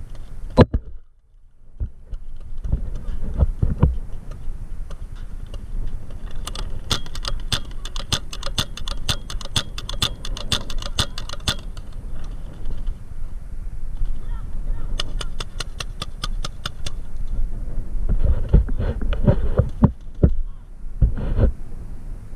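Paintball marker firing rapid strings of shots, several pops a second: a long string about a third of the way in and a shorter one past the middle. Under it runs a constant low rumble from the microphone being handled and carried, with a few heavy thumps near the end.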